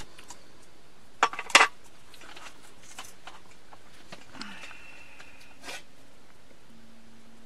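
Stainless steel coffee pot and insulated carafe being handled, with light metal clinks and knocks: two sharp clinks about a second and a half in, then a few softer rattles.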